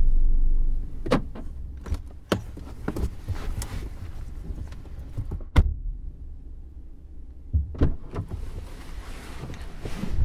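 A car engine's low rumble that drops away about a second in, then a string of clicks and knocks from car doors being opened and shut as passengers get out, the sharpest about halfway through.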